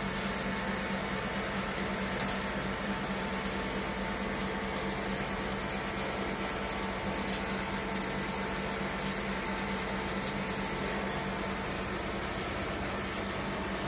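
Duck breast sizzling steadily in hot oil in a frying pan, with a steady electrical hum from the induction hob underneath.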